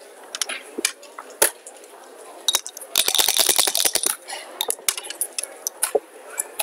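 A couple of sharp clicks of backgammon checkers being set down on the board, then dice rattling in a dice cup for about a second and rolled out onto the board with a few clicks.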